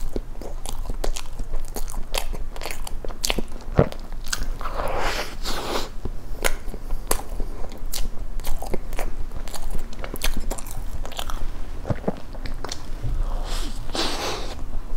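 Close-miked chewing of soft cream-filled castella sponge cake, with many wet mouth clicks and smacks throughout. Two longer, softer rustling stretches come about five seconds in and near the end.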